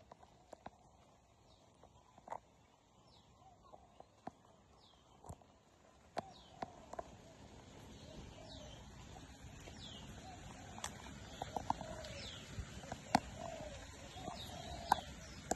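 Scattered knocks and rubbing from a monkey handling a mobile phone, its fur against the microphone, growing into a steady low rumble about halfway through. Birds chirp in the background with short falling chirps every second or so.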